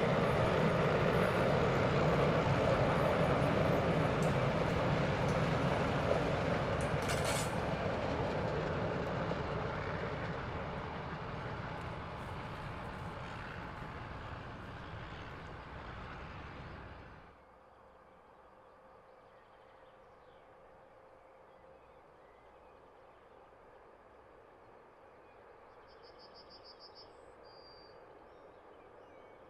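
A train running by on the rails, its rumbling, rushing noise fading steadily as it moves away. Just over halfway through the sound cuts off abruptly to quiet outdoor ambience, with a brief faint bird twitter near the end.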